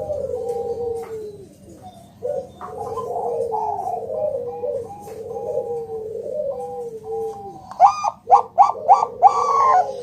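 Bangkok perkutut (zebra dove) cooing in continuous, overlapping phrases of gliding, falling notes. Near the end comes a quick run of about five louder, sharper notes.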